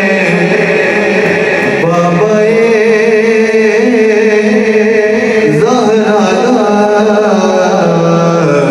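Devotional song: a singer holding long, drawn-out melodic notes over musical accompaniment.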